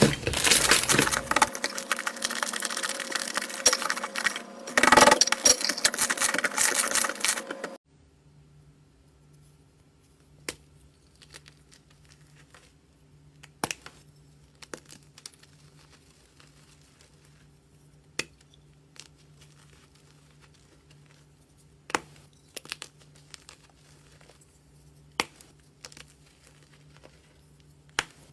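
Slime being squeezed and kneaded: a dense, loud crackling and crinkling for about eight seconds. It cuts off abruptly, leaving a faint steady hum with occasional single small clicks.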